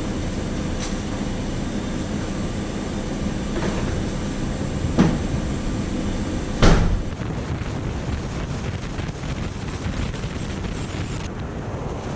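A vehicle running steadily, a continuous rumble, with two brief knocks about five and seven seconds in.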